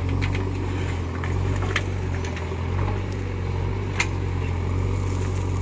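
JCB 3DX backhoe loader's diesel engine running steadily while the backhoe bucket digs through stony soil, with sharp knocks of metal on stone about two seconds in and again about four seconds in.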